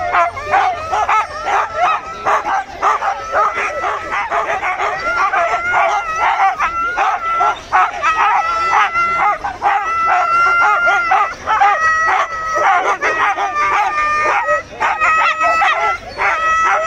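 Harnessed sled-dog huskies barking and yelping in a continuous, overlapping chorus, with some longer held cries, as they are held back eager to run at a race start.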